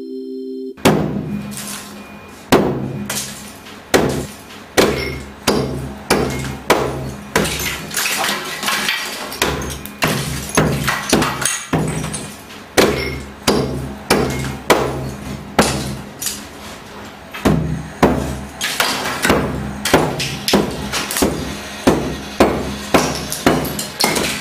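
Repeated hammer blows breaking through a plaster wall, about thirty sharp impacts at roughly one every 0.7 seconds, starting about a second in, over a low steady drone.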